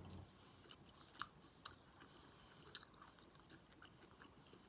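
Faint, close-up chewing of a mouthful of food, with scattered soft wet mouth clicks and smacks.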